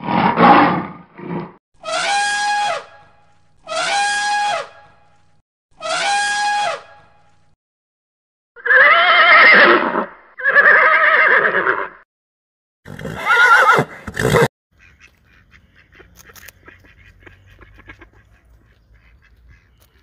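A run of loud animal calls: several short pitched calls about two seconds apart, then horses neighing in long whinnies around the middle. After that the calls stop and only faint crackling is left.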